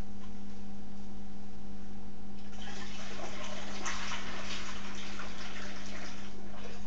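Liquid poured from a plastic pitcher through a funnel into a glass carboy, splashing steadily. It starts about two and a half seconds in and stops just before the end.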